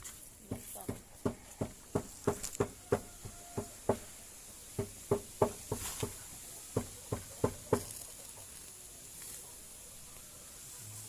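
A series of short, dull knocks, irregular and about two or three a second, that stop about eight seconds in.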